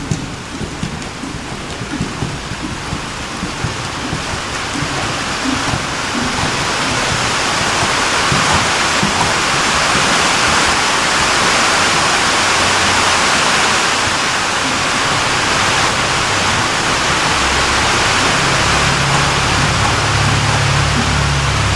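A steady rushing noise that swells over the first several seconds and then holds, with a low hum coming in near the end.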